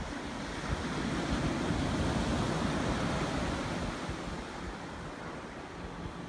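Ocean surf breaking and washing up a sandy beach: a steady rush of noise that swells about a second in and eases off after about four seconds.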